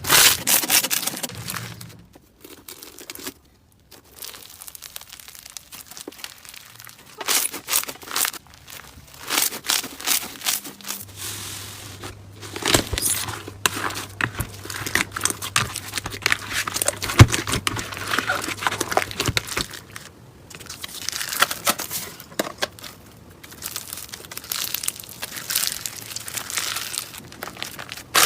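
Hands squeezing, stretching and poking slime: a dense run of sticky crackles and small pops, with short pauses between handfuls.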